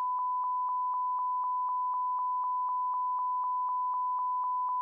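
A steady electronic beep: a single pure tone held at one pitch, with faint ticks about four times a second.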